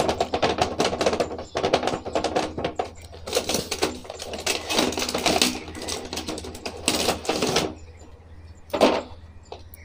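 Cardboard box and clear plastic blister tray of an action-figure set being handled and pulled apart: irregular runs of crinkling and clicking, with a louder rustle about nine seconds in.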